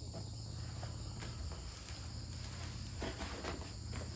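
Steady high-pitched chorus of insects, with scattered short rustles and knocks and a low rumble underneath.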